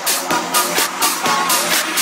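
Electronic dance music with a steady beat, about four percussive hits a second.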